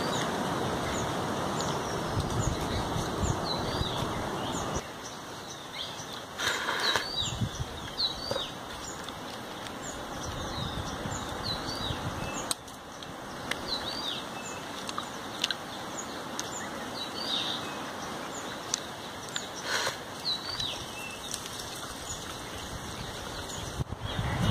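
Small birds chirping and calling again and again, many short high chirps scattered throughout. Over them, a close rustle of a leaf plate being handled drops away about five seconds in.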